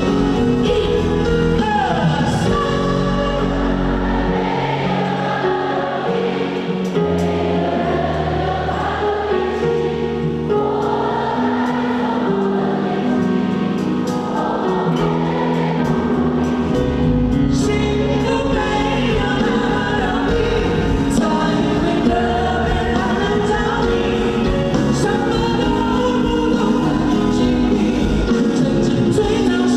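Live concert music: several voices singing together over band accompaniment.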